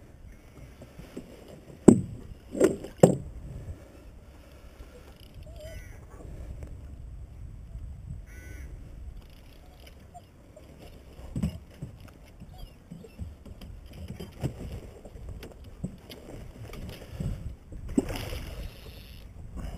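Water against a small boat on a lake, with three sharp knocks about two to three seconds in and scattered lighter clicks.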